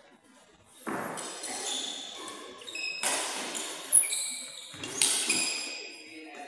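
Sports shoes squeaking on an indoor badminton court floor, with footfalls and a sharp knock about four seconds in, all echoing in a large hall.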